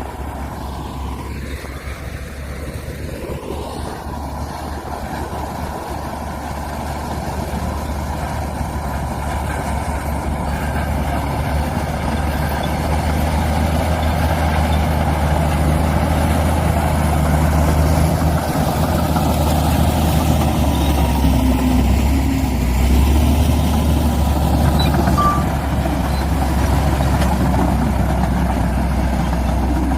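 Heavy diesel construction machinery running under load, a steady low engine rumble that grows louder over the first half and then holds.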